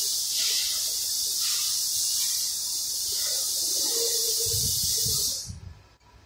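A loud, steady, high hiss of spray that runs for about five and a half seconds, then cuts off, with a few low knocks as it ends.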